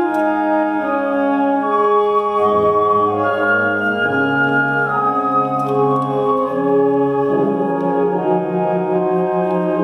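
High school concert band playing a slow passage of held chords, with brass and saxophones blending into an organ-like sound. In the last couple of seconds a low note pulses about three times a second under the sustained chord.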